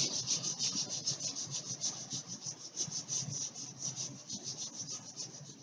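Rapid back-and-forth rubbing on bare wood, about six strokes a second, as gel stain is worked into an unfinished wooden cabinet. The strokes grow somewhat fainter toward the end.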